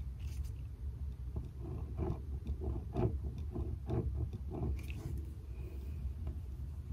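Pen writing tick marks on a paper poster lying on a tabletop: short, irregular scratchy strokes and small taps for most of the first five seconds, over a low steady room hum.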